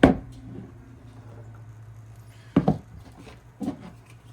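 Hard plastic parts knocking and clicking as they are handled and set down: three sharp knocks, one at the start, another about two and a half seconds in and a third a second later, over a steady low hum.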